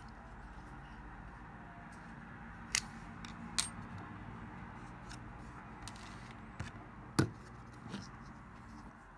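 A handful of short, sharp clicks and taps, about five in all, the loudest about seven seconds in, over a low steady hum.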